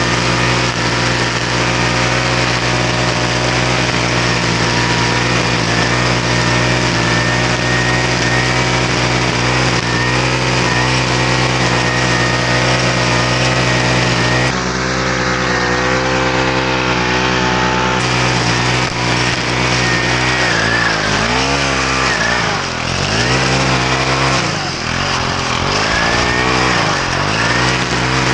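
Small lawn-equipment engine running at high speed, steady for most of the time; in the last several seconds its pitch dips and rises again and again as the throttle or load changes.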